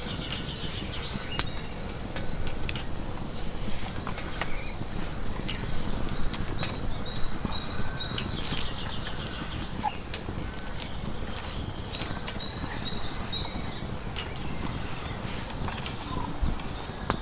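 A small songbird sings short, high, chirping phrases three times over a steady low rushing background, with scattered sharp clicks and ticks.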